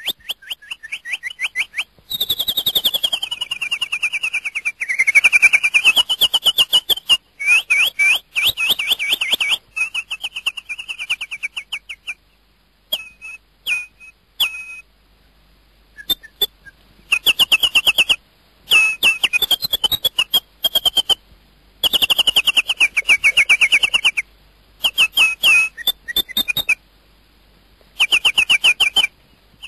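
Bird song: rapid high-pitched trills and chirping phrases in bursts a second or two long, separated by short silences, with a long swooping note a few seconds in.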